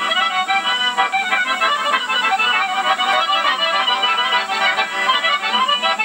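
Button accordion playing an instrumental folk tune, a quick run of melody notes over sustained chords.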